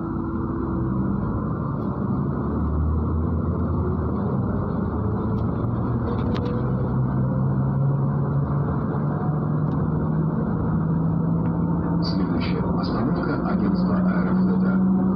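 MAZ-103 city bus running under way, heard from inside the bus: a steady diesel drone whose pitch rises as the bus picks up speed, with light rattling near the end.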